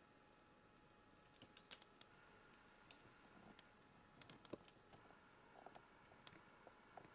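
Faint, irregular clicks of a young red squirrel gnawing open sunflower seeds, the husks cracking between its teeth.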